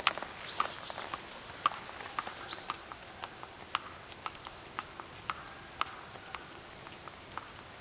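Hooves of a horse and a donkey clip-clopping on asphalt at a slow walk: uneven sharp clicks, a few a second.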